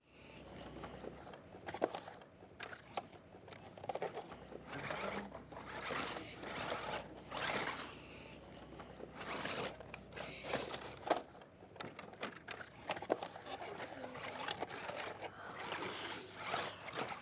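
Garden soil being dug and scraped by hand, a run of irregular scraping and crunching strokes with a few sharp clicks, and soft voices now and then.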